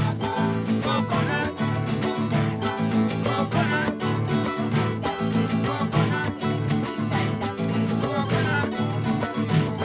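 Lively string-band music: plucked and strummed guitar-like strings over a steady, busy percussive beat.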